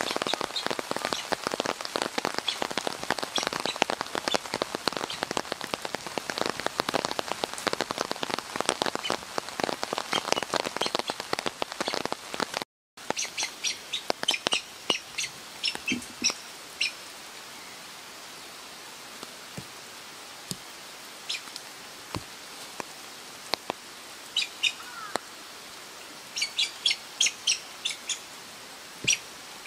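Rain pattering steadily, cut off sharply a little under halfway through. Then a bird's short, high chirps, in quick runs of several with long gaps between.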